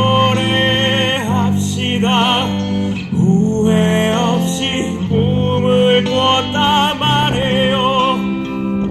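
Live acoustic guitar strummed under a singer holding long, wavering notes with vibrato.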